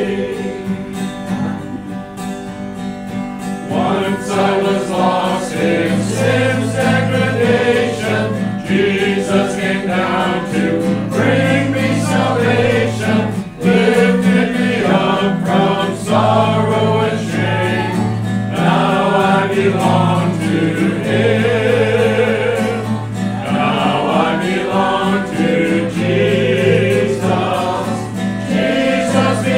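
Congregation singing a gospel hymn together, accompanied by a strummed guitar.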